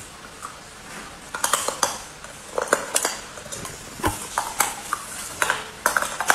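Hard ice being bitten and chewed close to the microphone: a run of sharp, uneven crunches and cracks that begins about a second and a half in.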